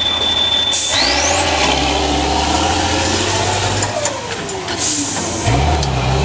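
Diesel engine of a four-axle trial truck revving hard under load as it climbs a steep rocky slope, with a high whine that climbs sharply about a second in. The revs fall away around four seconds in, then surge again near the end.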